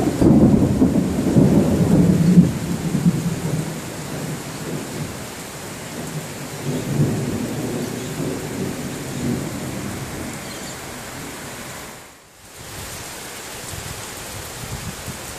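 Thunder from a pre-monsoon thunderstorm rolling over steady rain: a loud low rumble at the start that dies away over about four seconds, then a second, quieter rumble a few seconds later. Rain hisses throughout, and the sound drops out briefly near the end.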